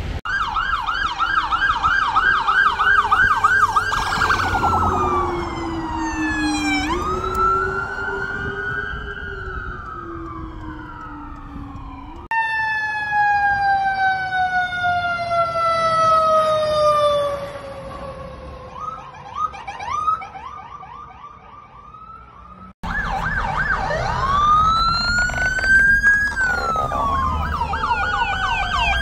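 Fire truck sirens on an emergency response: a fast yelp, then slower rising and falling wails. About twelve seconds in, the sound changes suddenly to one siren tone falling slowly for about ten seconds, and near the end it switches back to overlapping yelp and wail.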